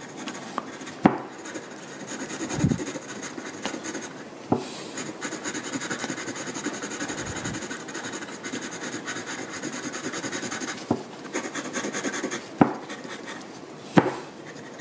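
Pencil hatching on drawing paper: graphite scratching in quick, rapid strokes, densest through the middle stretch, with a few sharp ticks along the way.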